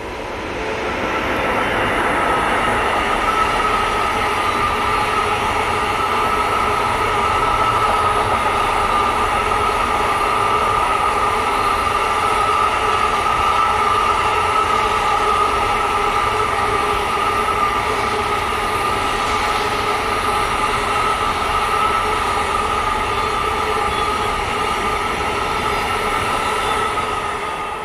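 Intermodal container freight train rolling past behind an electric locomotive: a steady rumble of wagon wheels on the rails with a sustained ringing whine over it. It swells over the first couple of seconds and then holds level as the wagons go by.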